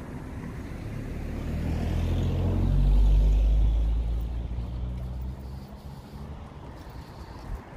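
A motor vehicle driving past close by: engine hum and road noise swell to a peak about three seconds in, then fade away over the next couple of seconds.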